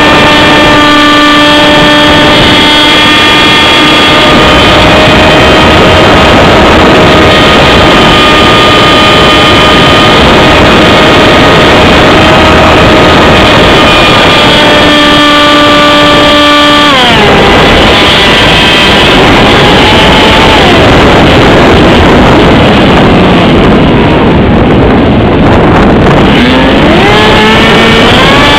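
Electric motor and propeller of an AXN radio-controlled plane, heard from an onboard camera as a steady whine over heavy wind rush on the microphone. About 17 seconds in the pitch drops sharply as the motor slows, then winds back up near the end.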